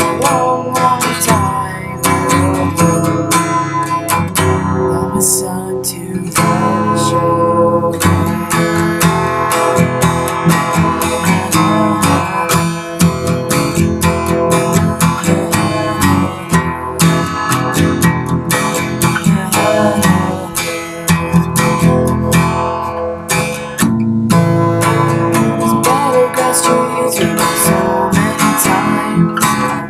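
Acoustic guitar being strummed, a steady chord accompaniment.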